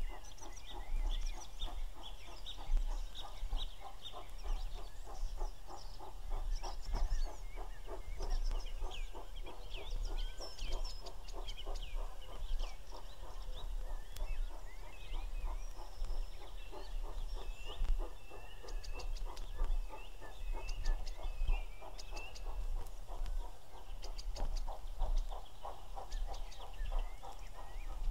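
A distant steam locomotive hauling a freight train up a gradient, working hard, its exhaust beats coming as a steady, even run of chuffs. Birds chirp and sing close by over it.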